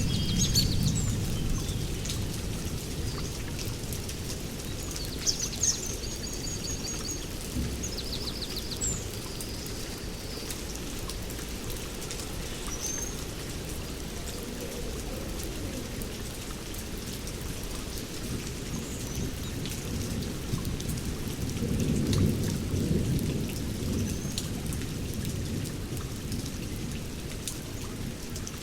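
Heavy rain falling steadily, with low rolls of thunder: one rumble dying away in the first couple of seconds and another building about 22 seconds in. A few short high chirps sound through the rain in the first several seconds.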